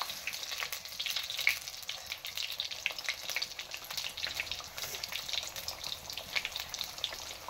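Samosas frying in hot ghee in an aluminium pan: a steady sizzle thick with rapid small pops and crackles.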